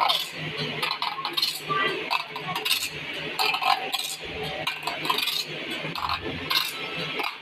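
Sawmill saw-sharpening machine at work: repeated sharp metallic clinks and ticks over a steady motor hum.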